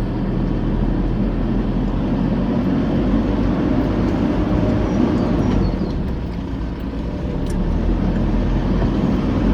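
Four-wheel-drive vehicle driving along a sandy track: steady engine and tyre noise with a few light knocks.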